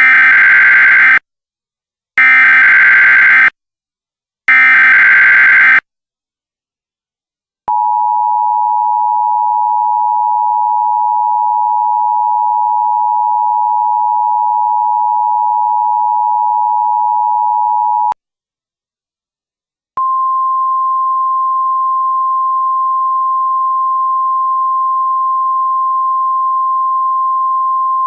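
Emergency Alert System signals: three harsh digital SAME header bursts, each a little over a second long, then the two-tone EAS attention signal held steady for about ten seconds. After a two-second pause comes the single-pitch NOAA Weather Radio warning alarm tone, held steady.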